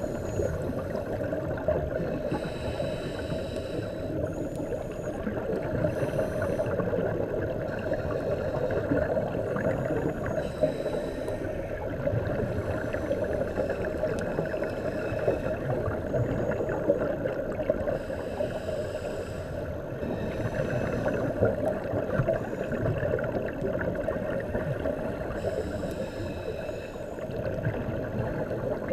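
Underwater ambience of a scuba dive: a steady muffled rush, with a diver's regulator breathing in bursts of hiss and bubbles about every couple of seconds.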